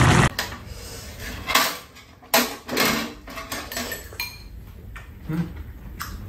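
Metal spoons and chopsticks clinking and scraping against bowls as two people eat, a scattered run of sharp clinks of uneven loudness.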